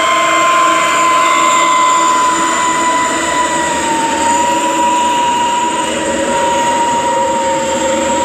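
Loaded Mitsubishi Canter dump trucks driving past, their engines and drivetrains running under load with a steady high whine over the engine noise. The whine dips slightly in pitch midway.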